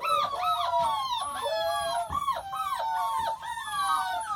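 Six-week-old deerhound/greyhound x whippet lurcher puppies whining and yelping in a rapid string of short, high, rising-and-falling cries that overlap one another.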